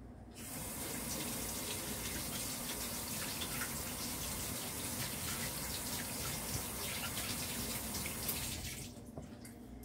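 Water running from a tap while hands are washed under it. The water is turned off near the end.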